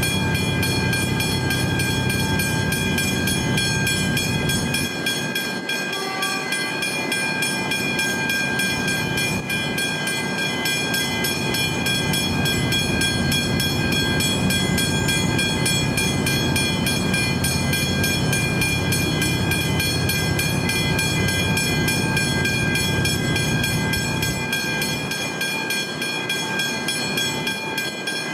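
Railway level crossing warning bells ringing continuously in fast, even strokes while the boom gates are down, over a low rumble that fades and returns.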